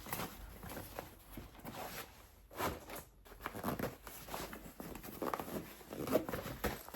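Rustling and knocking of items being handled and packed into a backpack, in a run of short irregular bursts.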